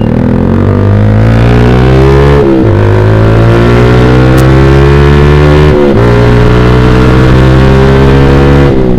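Yamaha Vixion's single-cylinder engine breathing through a Proliner TR1 short aftermarket exhaust, accelerating hard through the gears: the pitch climbs steadily and drops sharply at three upshifts, about two and a half, six and nearly nine seconds in.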